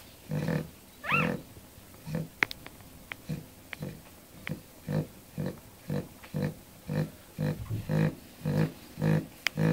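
Cavalier King Charles Spaniel dam snoring in quick, regular snorts, about two a second, coming a little faster near the end. A short rising squeak sounds about a second in, and a few brief high squeaks follow.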